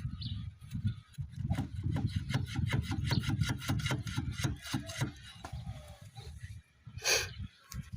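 Rough, rhythmic rubbing with a quick series of clicks, typical of a wheel with a rough or seized bearing being turned by hand. A short scrape comes near the end.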